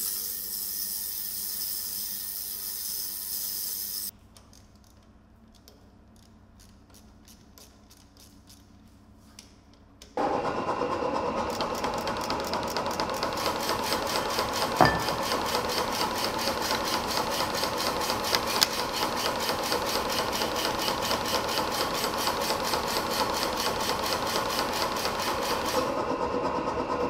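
An ultrasonic cleaner hissing at a high pitch for the first four seconds, stopping abruptly. From about ten seconds in, a mechanical power hammer's drive runs steadily with a fast, regular ticking.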